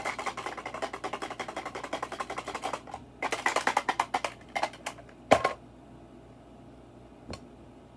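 A small hard fidget toy being worked, giving rapid clicking at about ten clicks a second for nearly three seconds and then a second short burst. Two single sharp clicks follow, the louder one about five seconds in.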